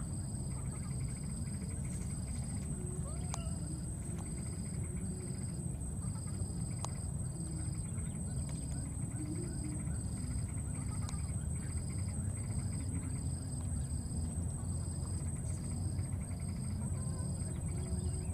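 Insects calling: a steady high-pitched whine with a cricket-like chirp repeating evenly, a little under twice a second, over a low steady rumble.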